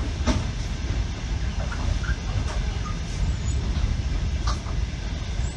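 Wheel noise of a Russian Railways passenger train under way, heard from aboard: a steady low rumble with a few separate sharp clicks and knocks from the wheels over the track.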